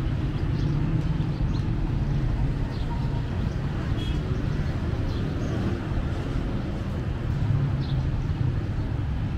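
Outdoor city street ambience: a steady low rumble of traffic with a few short high chirps scattered through it.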